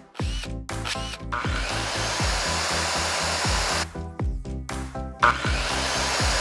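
Background music with a steady beat, with a power tool running through it in two stretches: one of about two and a half seconds starting a little over a second in, and a shorter one near the end.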